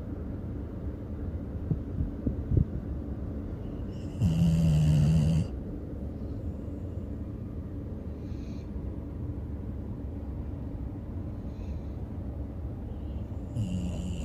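A sleeper snoring: one loud drawn-out snore lasting about a second, about four seconds in, and another beginning near the end. Between them there are softer breaths over a steady low rumble, with a few light clicks around two seconds in.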